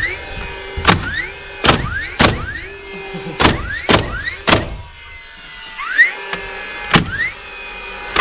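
About nine loud, irregularly spaced knocks, likely hammer blows on timber, each followed by a short rising ring, over a steady hum.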